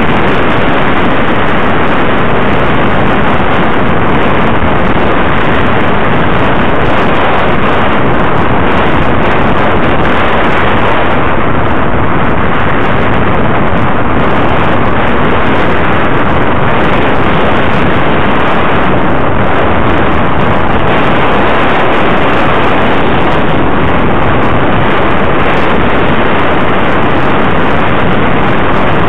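Wind and road rush on the microphone of a camera riding on a moving motorcycle: a loud, even, unbroken rushing noise with no distinct engine note.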